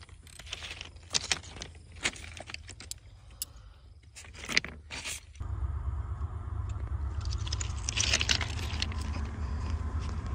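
A metal spoon clicking and tapping as it is handled and set on a steel rail, with a scatter of sharp clinks. About five seconds in, a steady low rumble starts: the approaching train.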